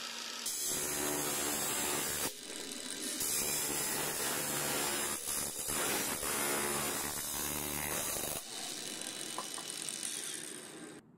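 Cordless angle grinder fitted with an old hard-drive platter as its disc, running and cutting through a plastic PET bottle: a loud grinding rasp from about half a second in, easing briefly near the two-second mark, then going on. Near the end the disc spins free with a thinner, higher whine before the motor stops.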